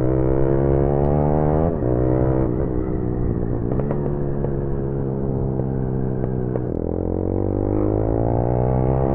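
Motorcycle engine pulling hard under acceleration, its note climbing steadily in pitch and dropping sharply twice, about two seconds in and again near seven seconds, as it shifts gear.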